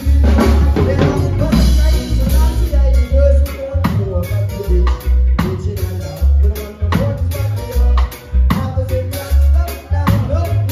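Live band playing: electric bass and drum kit keeping a steady beat, with acoustic guitar and sung vocals from two singers.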